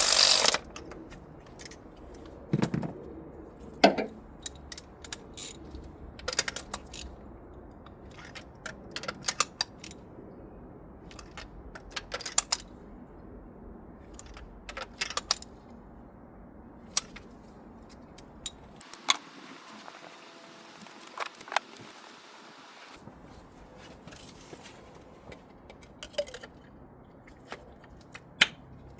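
Irregular metallic clicks and clinks of hand tools and spark plugs being handled, with the sharpest knocks about four seconds in and near the middle.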